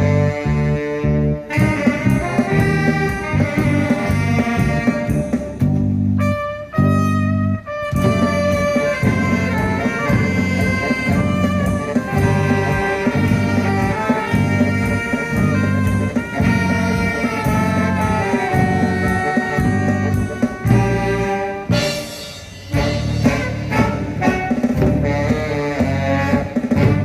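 A band playing music live with a steady beat, its texture briefly breaking off about six seconds in and again shortly past twenty seconds.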